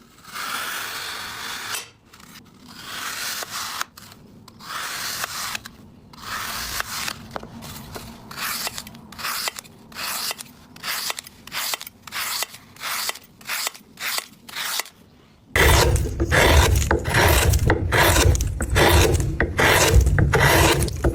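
Repeated scraping and rubbing strokes. About fifteen seconds in they turn suddenly louder, fuller and quicker.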